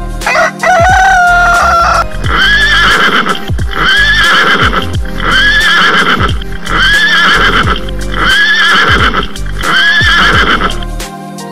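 A rooster crows for about the first two seconds. Then a horse neighs over and over, about once a second, over background music with a steady beat.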